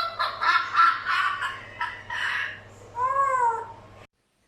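Cat-like meowing: a run of quick short cries, then one long meow that rises and falls. It cuts off abruptly about four seconds in.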